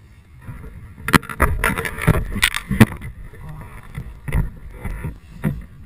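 Irregular knocks, scrapes and rustling right at the camera as it is moved about in the snow. A cluster of sharp knocks comes between about one and three seconds in, and a few more come near the end.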